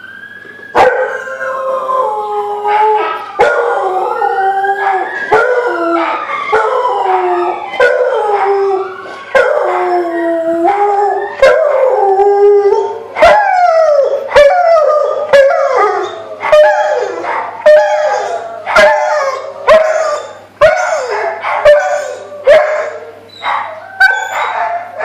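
A Rottweiler howling in response to an ambulance siren: long wavering howls with several overlapping notes gliding up and down. In the second half these give way to shorter howls that start sharply and fall in pitch, about one every second.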